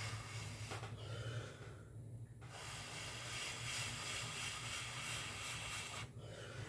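Soft breathing close to the microphone: two long breaths with a short pause about two seconds in, over a steady low electrical hum.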